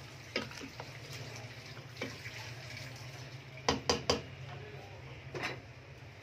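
Wooden spoon stirring chicken and bottle-gourd pieces in a little water in a pressure cooker pot, with several knocks of the spoon against the pot, three in quick succession about four seconds in. A steady low hum runs underneath.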